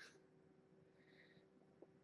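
Near silence: room tone, with one faint tick near the end.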